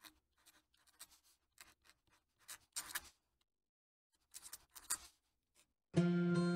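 Fountain pen nib scratching across paper in short strokes of cursive handwriting, with a pause near the middle. About six seconds in, acoustic guitar music starts.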